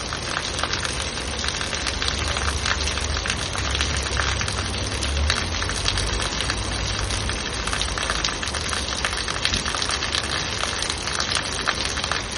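Heavy rain as steady dense pattering, with a low rumble underneath that swells in the middle.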